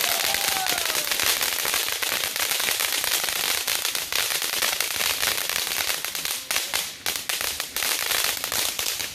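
Ground fountain firework spraying sparks with a dense, continuous crackle of rapid sharp pops over a hiss, dipping briefly near the end.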